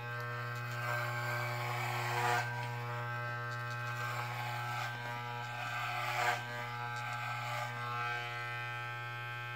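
Corded electric hair clippers running with a steady buzz, cutting close to the scalp above the ear. Twice the sound gets louder and rougher as the blades pass through hair, about two seconds in and again around six seconds.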